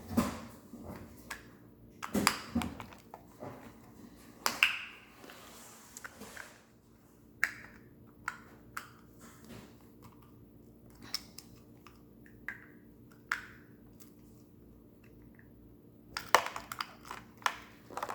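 Small plastic pieces from a slime kit being handled on a table. Scattered clicks and taps with a few short rustles come at uneven intervals, busiest near the start and again near the end.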